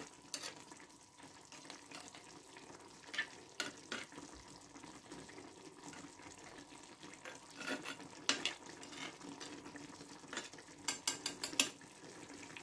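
Metal spoon stirring a meat and onion sauce in a clay tagine, with scattered clicks of the spoon against the earthenware and a quick run of taps near the end, over a faint simmering of the sauce.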